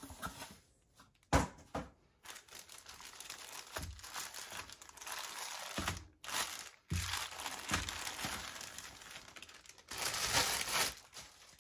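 Clear plastic poly bag crinkling and rustling in the hands as a wallet is pulled out of it, in several stretches, loudest near the end. A sharp knock about a second in.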